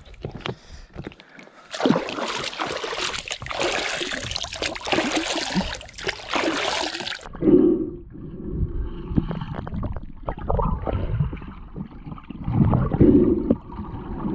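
Water splashing loudly around the camera at the surface. About seven seconds in the sound turns suddenly muffled as the camera goes under water, leaving a low rumble with gurgling bubbles from a snorkeler swimming.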